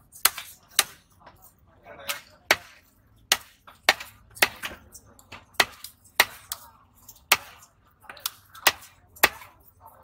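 A heavy broad-bladed knife chopping through hamour (grouper) flesh and striking a wooden log chopping block: about a dozen sharp chops at an uneven pace.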